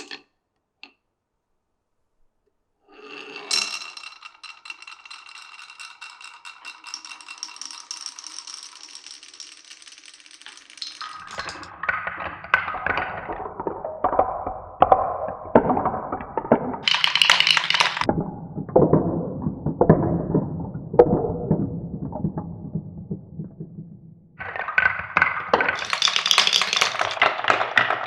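Marbles rolling and clattering through a wooden marble run. After a short silence comes a ringing roll with steady high tones for several seconds, then a long run of clacks and knocks over a low rolling rumble, and a louder burst of quick high clatter near the end.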